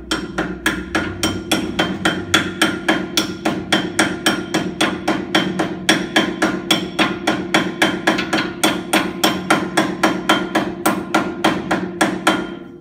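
Soft-face hammer tapping a new swivel hub bearing cone into the steering knuckle of a Toyota LandCruiser 70 series to seat it square. The blows come steadily at about three to four a second with a ringing metallic note, and stop just before the end.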